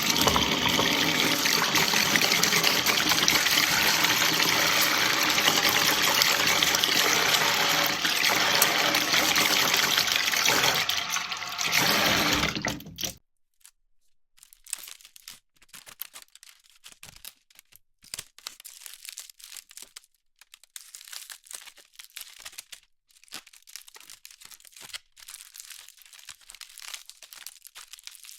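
Kitchen tap running in a steady rush of water, cut off abruptly about thirteen seconds in. Then sparse, irregular crinkling and crackling of packaging being handled.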